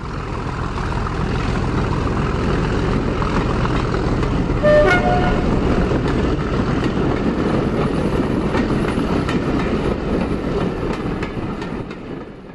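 Diesel locomotive running with a steady rumble, sounding a short two-note horn blast about five seconds in. It fades in at the start and fades out near the end.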